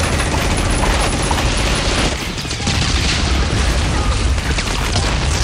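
Loud, dense action soundtrack with heavy bass and rapid gunfire-like bangs, laid over the Nerf fight.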